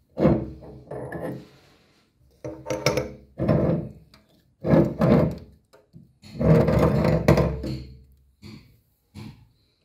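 Meat grinder being taken apart by hand: its cutter blade and auger are worked off the shaft and out of the ice-cream-coated metal barrel. The metal parts scrape and knock in a series of about five short bursts.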